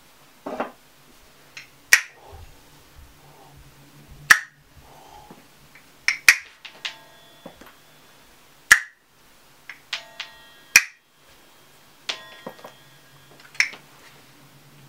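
Sparse improvised percussive sounds: about a dozen sharp snaps or clicks at irregular intervals, a few much louder than the rest. Several are followed by short ringing pitched tones.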